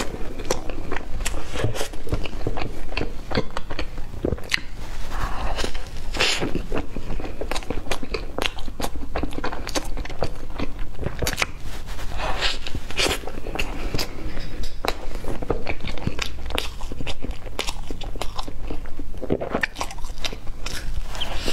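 Close-miked biting and chewing of a chocolate-coated cake roll, a steady run of small sharp clicks and crunchy bites as the chocolate coating breaks.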